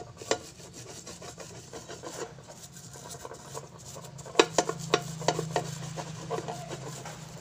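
A Happycall frying pan being rubbed and shifted around on a hard floor, making a rasping scrape, with a sharp knock just after the start and a quick run of sharp knocks of the pan about four to six seconds in. A steady low hum runs underneath.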